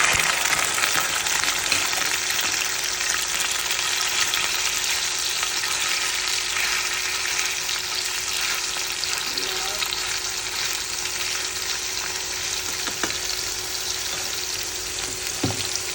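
Food sizzling steadily in hot cooking oil in a frying pan, just after being put in, with a couple of short knocks near the end.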